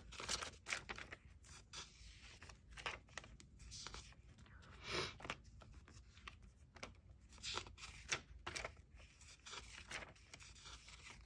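Paper pages of a personal-size ring planner being turned one after another: a faint string of short paper rustles and flicks.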